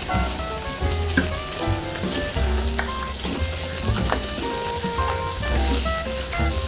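Lobster and langoustines frying in olive oil in a steel paella pan, a steady sizzle, with a few sharp clicks of metal tongs as pieces are lifted out. Background music plays underneath.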